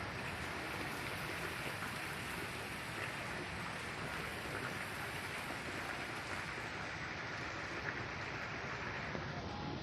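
Light rain falling: a steady hiss with faint scattered patter.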